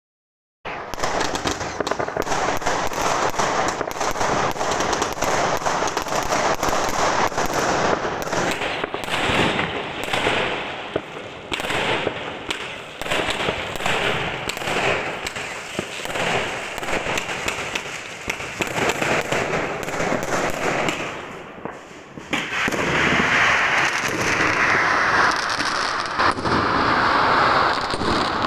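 Many fireworks and firecrackers going off at once in a dense, unbroken stream of bangs and crackles. It starts abruptly after a moment of silence, eases briefly about three quarters of the way through, then comes back louder and denser.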